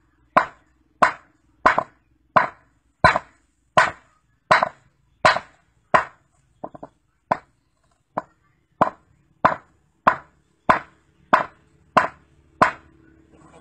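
Claw hammer striking a rock held on a concrete slab, about eighteen sharp knocks at an even pace of roughly one and a half a second, with a brief pause of a few lighter taps a little past halfway.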